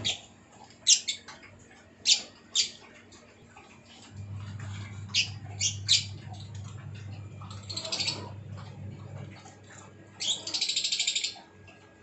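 Small aviary parrots chirping: short, sharp high calls scattered through, then a rapid buzzy chatter lasting about a second near the end. A low steady hum runs underneath for several seconds in the middle.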